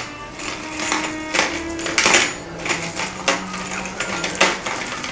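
A series of light metallic clicks and clinks from shutter hinge pins and hardware being handled, with soft background music under them.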